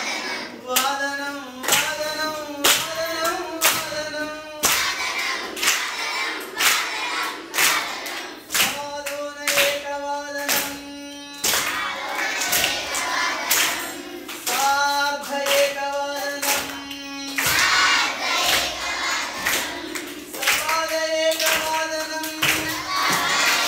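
A roomful of children singing a Sanskrit song together, with held notes, and clapping their hands in a steady beat.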